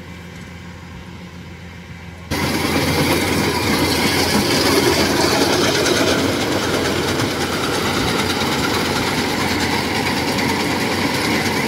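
Kubota DC-105 combine harvester running as it cuts rice: engine drone with the steady mechanical rattle of the cutter and threshing gear. It is distant for about the first two seconds, then suddenly much louder and close.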